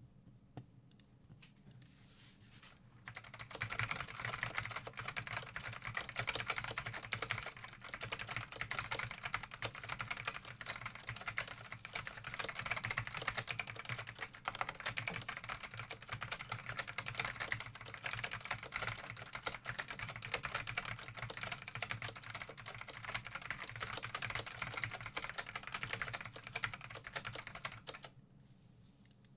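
Typing on a Dell AT102W vintage mechanical keyboard with black ALPS SKCM "bamboo" switches and ABS keycaps: a fast, continuous stream of key clicks that starts about three seconds in and stops shortly before the end.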